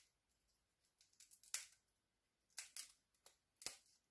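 Brittle shell of a roasted chestnut cracking and snapping as fingers peel it, a handful of short, sharp cracks with quiet gaps between them.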